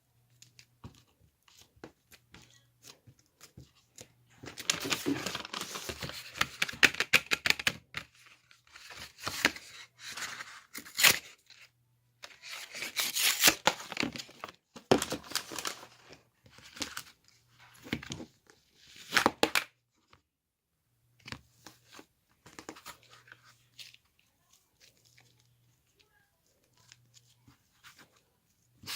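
Irregular bursts of crackling, crinkling and tearing handling noise with sharp clicks, busiest in the first two-thirds and sparse near the end.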